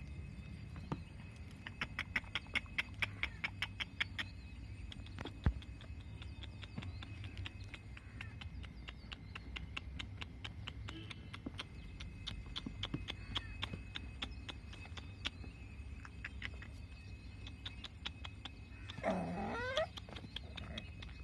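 Puppy whining, one bending, wavering call near the end. Before it come runs of light clicks, about four to five a second for a stretch, and one sharper knock about five seconds in.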